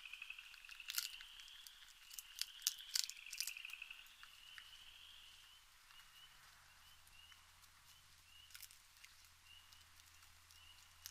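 A raccoon eating, with sharp crunches and clicks that are loudest between about one and three and a half seconds in. A faint night chorus of pulsing trills runs behind it and gives way to short chirps repeated about twice a second.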